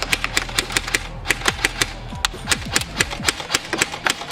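Airsoft guns firing a rapid string of sharp clicking shots, about five or six a second.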